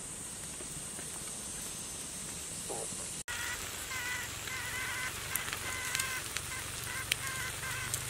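A steady high insect drone at first. After a brief cut-out about three seconds in, a wood fire crackles over embers with sharp pops, while a bird calls over and over in short, quick notes.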